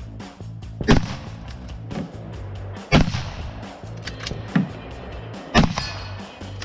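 Rifle shots fired singly, about two seconds apart: three loud cracks with a fainter bang between the second and third, over background music with a steady bass.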